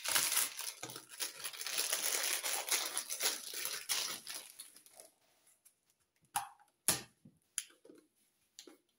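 Thin plastic packaging crinkling and tearing as it is pulled off a stack of small round clear plastic storage containers, for about five seconds. Then a few separate sharp plastic clicks and knocks as the containers are handled.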